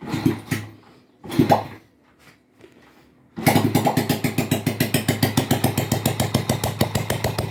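Honda Pop 100 single-cylinder four-stroke engine kick-started on its first start after a rebuild: two short turnovers, then it catches about three seconds in and runs with an even, rapid beat of firing pulses. It runs without its exhaust fitted, so each pulse comes straight from the open port.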